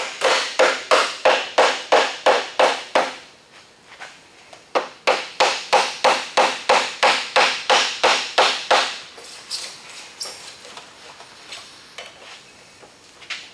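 Hammer tapping a thin steel putty knife, about four quick sharp taps a second with a short metallic ring, driving the blade into the glue seam to cut the factory adhesive bonding a spoiler to the decklid. The taps come in two runs with a pause of under two seconds between, then give way to faint, scattered small knocks.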